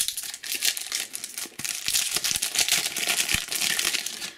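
Shiny foil trading-card booster pack wrapper crinkling and crackling in the hands as it is torn open, a dense run of sharp crackles.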